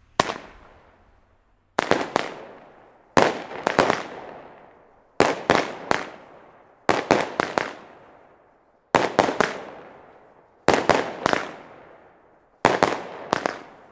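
Lesli 'Wolf' 8-shot consumer fireworks battery firing shot after shot, about one every one and a half to two seconds. Each shot is a quick cluster of two or three sharp bangs.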